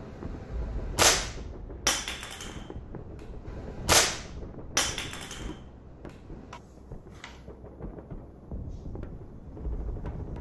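Marushin M1 Garand replica rifle firing two shots about three seconds apart, each followed about a second later by a weaker sharp crack. Fainter metallic clicks follow as the bayonet at the muzzle is handled.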